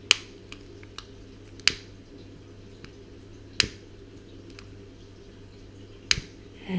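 Sharp clicks of a long-nosed butane utility lighter's piezo igniter, four loud ones roughly one and a half to two and a half seconds apart, with a few fainter ticks between them. A steady low hum runs underneath.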